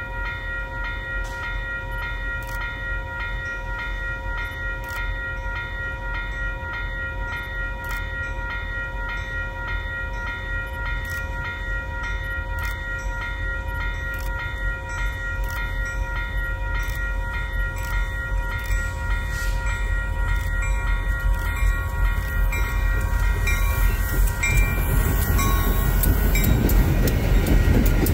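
A freight train hauled by EMD SD40-2-type diesel locomotives approaches, its low rumble building steadily until the locomotives pass close by near the end with a loud rush of engine and wheel noise. A steady chord of high tones sounds over the rumble until the locomotives arrive.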